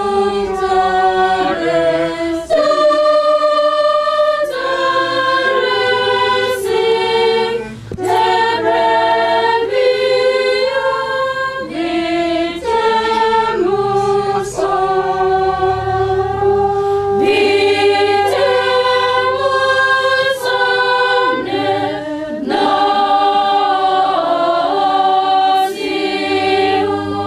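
A small choir of mostly women's voices singing a hymn together, phrase after phrase, with short pauses for breath between lines.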